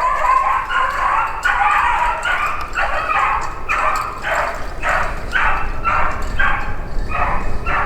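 Beagle barking in a steady, unbroken run of loud barks, about two a second.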